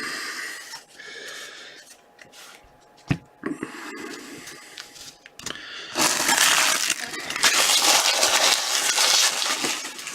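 Trading-card pack wrappers being torn open and crinkled, with loud dense crackling over the last four seconds, after a quieter stretch of handling with one sharp knock about three seconds in.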